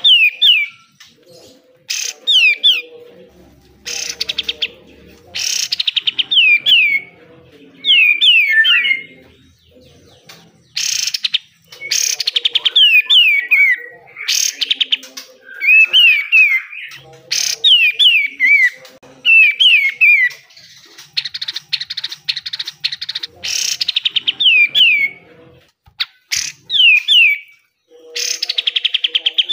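Kapas tembak songbird singing in fast, harsh bursts: short clusters of quick falling whistled notes alternate with loud rattling, scratchy runs, a new burst every second or two.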